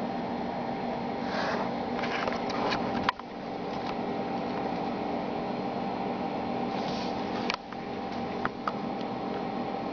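Desktop computer tower's cooling fans running with a steady whir and hum, joined by a few brief clicks, the sharpest about three seconds in and another about seven and a half seconds in.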